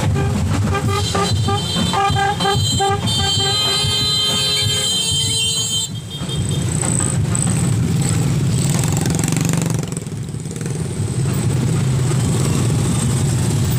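Many small motorcycles and scooters riding past in a slow column, their engines running together in a steady low rumble. Horns toot repeatedly through the first five seconds, then stop.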